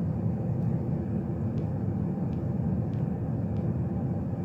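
Steady low background rumble, with a few faint sharp clicks of a Rubik's Cube's layers being twisted, about one every half second to second.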